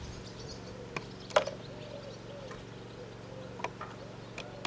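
Plastic paint bottle and container being handled: scattered small clicks and one sharp knock about a second and a half in, over a steady low hum.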